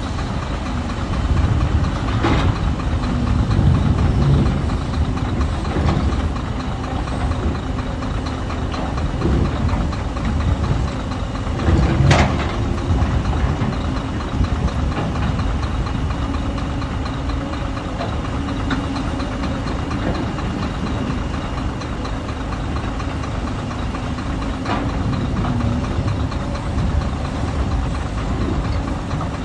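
Hyundai excavator's diesel engine running steadily, with two sharp knocks, a lighter one a couple of seconds in and a louder one about twelve seconds in.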